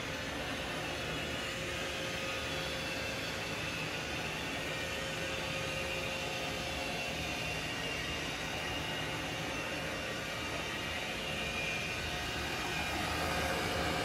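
iRobot Roomba 600-series robot vacuum running on carpet: the steady whir of its vacuum fan with a steady hum tone. It grows a little louder near the end.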